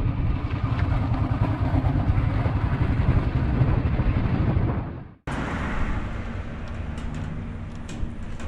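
Vehicle engine running with a dense, pulsing low rumble. About five seconds in, the sound cuts off abruptly to a quieter, steadier engine hum with a few light clicks.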